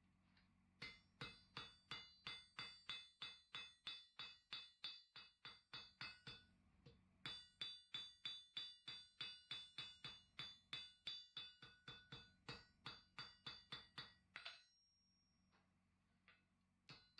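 Hand hammer striking hot steel on an anvil in steady blows, about three a second, each with a ringing tone, as the end of the bar is forged into a leaf. The blows pause briefly about six seconds in, resume, stop about fourteen seconds in, and two more strikes come near the end.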